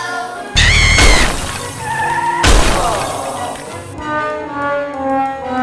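Two loud crashes about two seconds apart over music, then brass-like music with held notes from about four seconds in.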